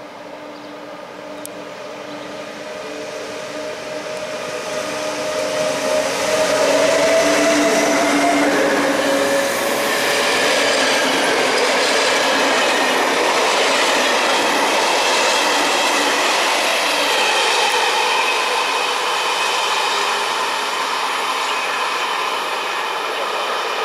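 Siemens Taurus electric locomotive (MÁV class 470) hauling a passenger train past at close range. A steady tone from the locomotive grows loud and rises slightly in pitch. The coaches then roll by in a loud rush of wheel and rolling noise with thin high tones, easing off a little as the train draws away.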